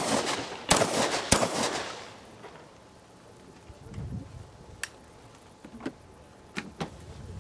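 Two shotgun shots, the first about a second in and the second just over half a second later, each followed by an echo dying away over the next second. A few faint sharp clicks follow near the end.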